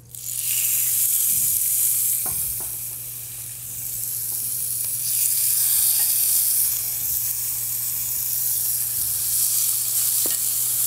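Raw chicken breasts sizzling in hot avocado oil as they are laid, seasoned side down, into a preheated cast-iron skillet; the sizzle starts as the first breast goes in, eases a little, then grows louder again about five seconds in as another breast is added. A few faint clicks of the metal tongs against the pan.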